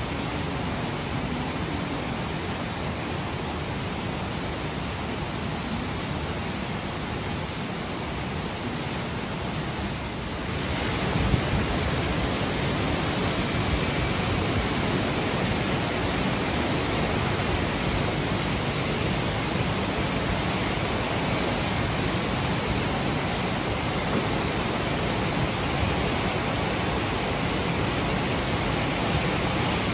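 Rain falling steadily. It grows louder about ten seconds in, with one brief knock just after.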